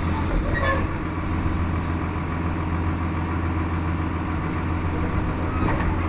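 Large diesel engine of farm harvest machinery running steadily, a low even drone with no change in pace.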